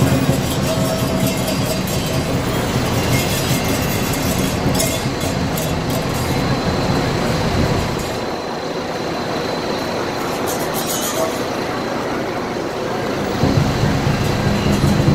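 Dragon dance percussion: drum and cymbals clashing continuously in a dense, loud wash. The deep drum falls away for several seconds from about eight seconds in while the cymbals carry on, then comes back near the end.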